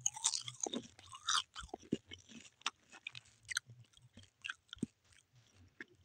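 A person chewing a grilled rolled seaweed snack with very crunchy, crisp crackles. The crackles come thick in the first second or so, then thin out to scattered crunches.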